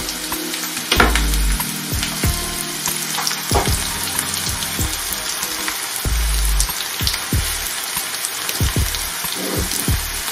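Sliced raw potatoes and red pepper frying in oil in a frying pan: a steady sizzle, with a few low thumps over it.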